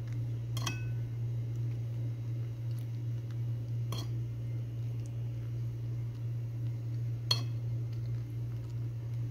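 A steady low hum, with three light clinks of dishware: one just after the start, one about four seconds in and one near the end.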